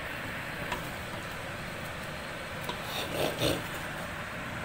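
Wooden spatula scraping and stirring a thick flour-and-onion roux against the bottom of a stainless steel pot, with a few louder strokes about three seconds in.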